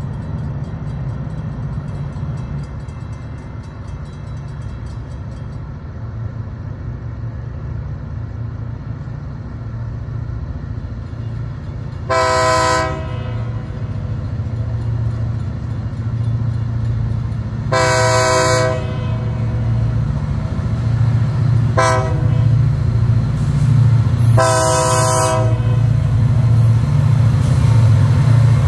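Diesel freight locomotives, a pair of GP40-2s leading, sound a multi-chime air horn in the grade-crossing pattern: long, long, short, long. Under the horn a steady low engine rumble grows louder as the train draws near.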